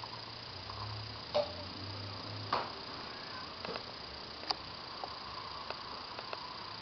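A few light clicks and knocks as an aluminium drink can and a drinking glass are set down, picked up and handled on a table. The two strongest come about one and a half and two and a half seconds in, with fainter taps after.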